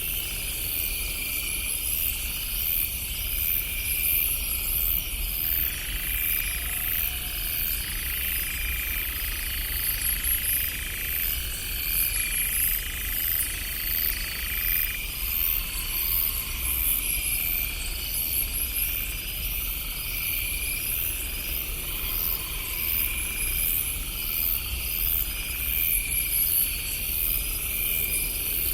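Night insects chirping in steady, rhythmic pulses over a low, constant rumble. A faint drawn-out tone sits under them for several seconds in the middle.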